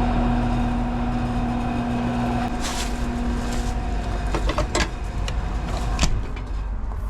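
A steady machine hum over a low rumble. The hum's tone drops out about two and a half seconds in, and several sharp clicks or knocks follow.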